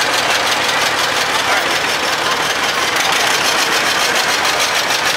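Antique tractor engines running at low speed as they drive past: a green John Deere two-cylinder moving away while a red Farmall comes up behind it.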